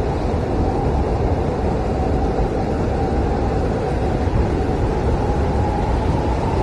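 Blizzard wind howling as a steady, dense rush of noise, heavy in the low and middle range, with no gusts or breaks.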